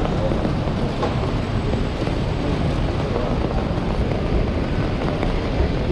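Steady noise of a rainy city street: traffic running on wet road, with no single event standing out.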